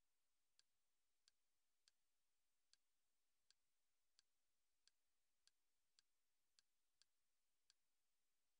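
About a dozen faint, sharp clicks, one every half second or so, over near silence: a media-player menu's navigation sound as the selection steps along a row of menu items.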